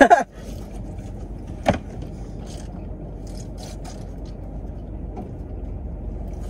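Steady low hum of a car running, heard from inside the cabin, with a short vocal sound at the very start and another brief one a little under two seconds in.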